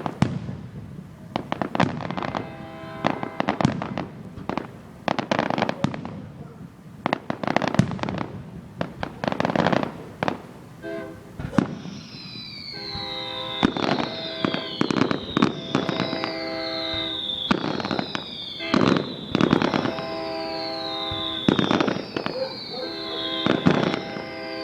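Aerial fireworks bursting over and over, sharp booms with crackle between them. From about halfway in, music plays along, with sustained chords and a falling whistle-like tone that repeats about every two seconds.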